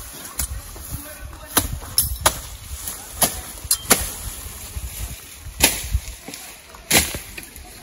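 A hand tool chopping into roadside grass and brush: about seven sharp strikes at uneven intervals.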